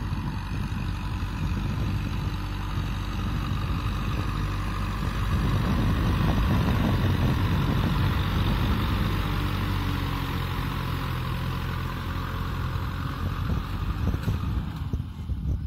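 A Kubota M6040SU tractor's four-cylinder diesel engine runs steadily under load as it pulls a disc plough through dry ground. Near the end the sound becomes more uneven.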